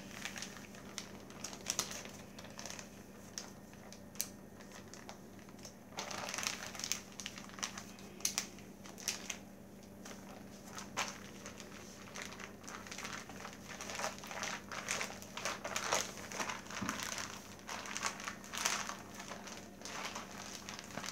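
One-gallon plastic zip bag crinkling and rustling irregularly as flour and dough are squeezed and kneaded by hand inside it. It gets busier from about six seconds in.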